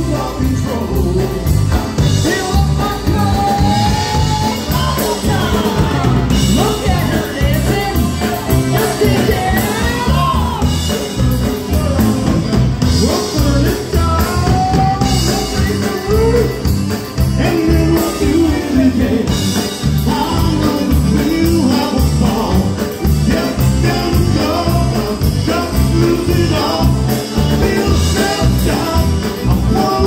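Live polka band playing a pop-song polka medley on two accordions, trumpet, electric bass and drums, with singing over a steady bouncing beat.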